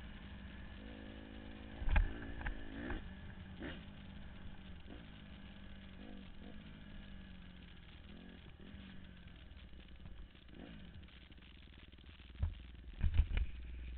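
Honda CRF150R dirt bike's four-stroke single-cylinder engine running while riding, its pitch rising and falling several times as the throttle is opened and closed. A sharp thump comes about two seconds in and a cluster of thumps near the end.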